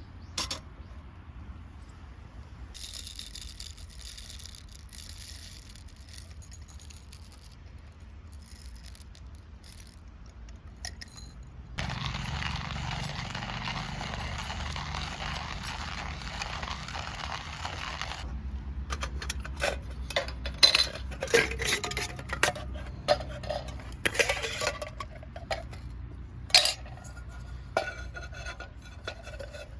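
Camp tableware and utensils clinking and scraping as they are handled, with many sharp clinks in the second half. A steady hiss starts suddenly about twelve seconds in and cuts off about six seconds later.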